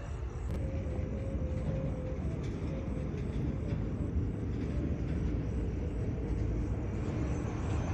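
Steady low rumble of open-air night ambience, with a faint steady hum for about two seconds near the start.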